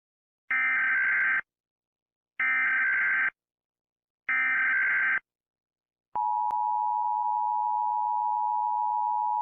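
Emergency Alert System SAME header: three identical raspy digital data bursts of about a second each, a second apart. About six seconds in, the steady two-tone EAS attention signal starts.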